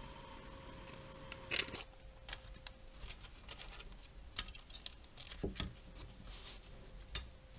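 Light handling sounds of a paper-wrapped plastic cutlery packet being unwrapped. There is one louder crinkle near the start, then scattered small crinkles and clicks of plastic utensils.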